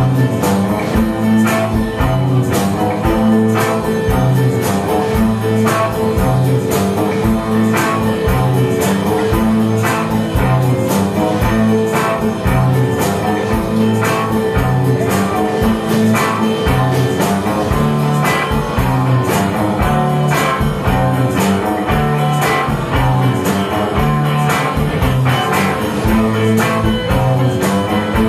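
A rock band playing live, electric guitars to the fore over bass and drums with a steady beat, in an instrumental stretch without singing.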